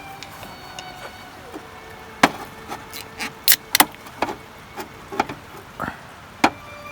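An irregular series of sharp knocks and clacks, about a dozen, from about two seconds in until near the end.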